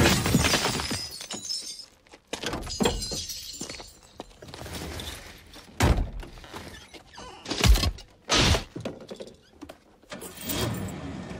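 A car's side window smashed in, the glass shattering and raining down for about two seconds, followed by scattered knocks and three heavy thuds inside the car, about six, seven and a half and eight and a half seconds in.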